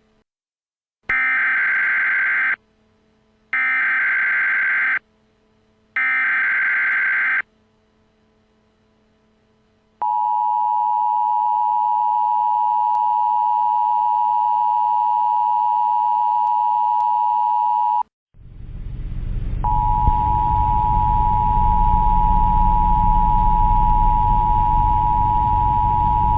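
Emergency Alert System Required Monthly Test signal. It opens with three identical bursts of the screeching SAME digital header, each about a second and a half long. After a pause comes the steady two-tone EAS attention signal (853 and 960 Hz), held for about eight seconds. A loud rushing noise then swells in, and the attention tone sounds again over it for about eight seconds, stopping near the end.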